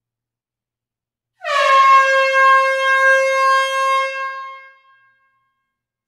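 Air horn sounding one long blast in an enclosed hall, starting about a second and a half in. Its pitch drops slightly as it starts, then holds steady for about three seconds before fading away.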